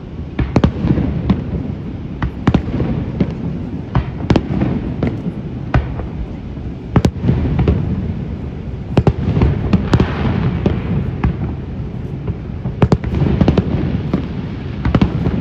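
Aerial firework shells bursting in an irregular run of about twenty sharp bangs, sometimes several in quick succession, over a steady low rumble. A brief hiss rises about ten seconds in.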